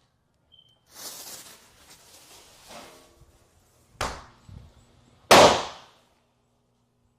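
Fireworks going off indoors: a hiss about a second in, then a sharp bang about four seconds in and a louder bang just over a second later.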